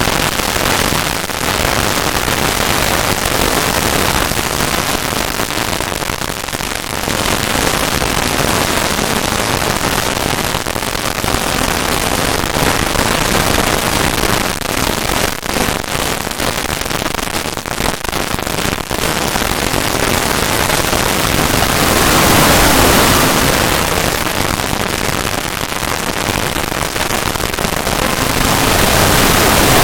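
Loud, harsh static-like noise with dense crackling, swelling a little about two-thirds of the way through and again near the end.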